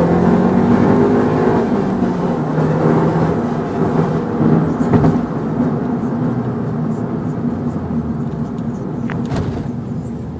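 Audi S1's turbocharged 2.0-litre four-cylinder engine heard from inside the cabin while driving, its note rising a little near the start and then holding steady over road noise as the loudness slowly eases. There are a couple of sharp clicks, about five seconds in and again near nine seconds.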